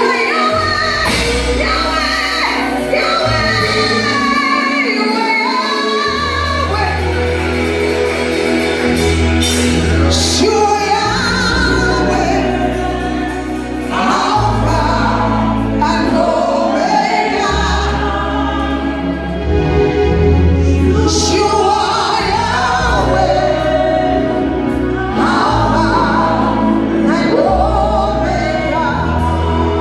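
Live gospel singing: a woman sings into a microphone over instrumental accompaniment, with held bass notes that change every two seconds or so.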